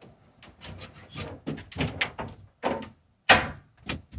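Sections of a homemade wooden box bed being pulled apart and shifted on the floor: a string of scrapes and knocks of wood, with one sharp bang a little past three seconds in.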